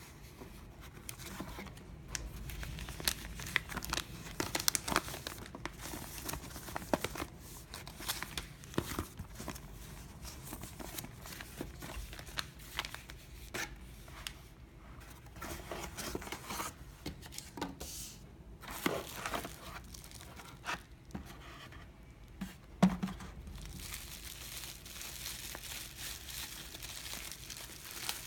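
Lens packaging being opened by hand: irregular tearing and crinkling of wrapping, with scattered sharp crackles, one louder snap about 23 seconds in, and a denser steady rustle near the end.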